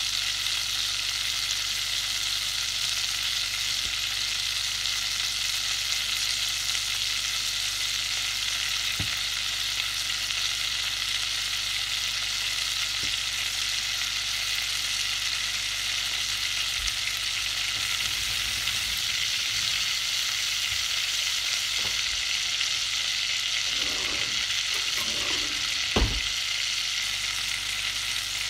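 Butter melting and sizzling in a hot pot, a steady frying hiss. A single light knock near the end.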